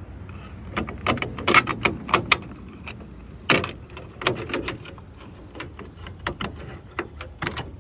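Irregular metallic clicks, clanks and rattles from hands and tools working inside a pickup truck's door shell, with a cluster of sharp knocks in the first few seconds and a single loud knock halfway through.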